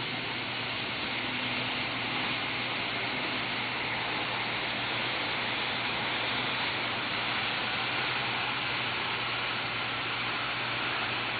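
HO-scale model train running along its track: a steady rushing hiss with a low hum beneath it.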